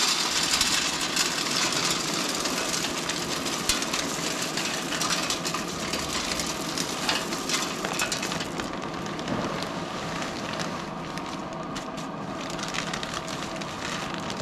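Wood pellets pouring into a pellet smoker's hopper: a dense rattling hiss of many small clicks. It thins out and grows quieter from about eight seconds in.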